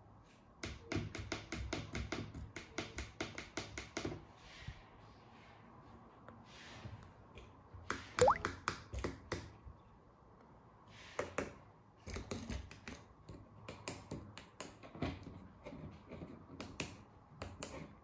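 Small tactile push button on a KR3001 RF relay receiver board clicked rapidly about eight times, the press sequence that resets the receiver and clears all paired remotes. Scattered clicks follow as the key-fob remotes are handled and pressed.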